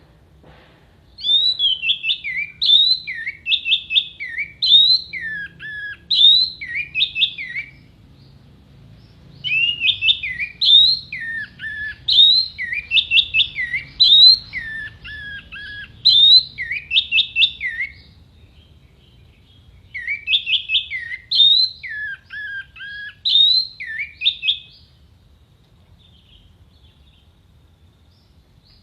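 Orange-headed thrush singing in three bouts of several seconds each: fast runs of sharp, clear whistled notes, many of them slurring downward, with short pauses between bouts. A faint low rumble lies under the song.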